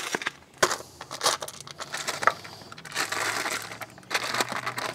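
Foil wrapper of a block of cream cheese crinkling and crackling in irregular bursts as it is peeled open and the cheese is scraped out of it with a wooden spoon into a bowl.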